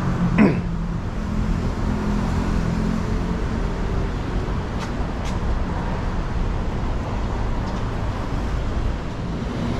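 City street traffic: car engines running and passing over a steady low rumble. A short, sharp knock about half a second in is the loudest sound.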